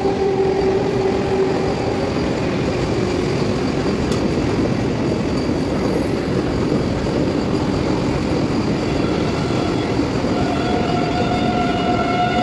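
Vande Bharat Express electric multiple-unit train running past: a steady rumble of wheels on the rails. A held horn note dies away in the first couple of seconds, and another horn note starts about ten seconds in.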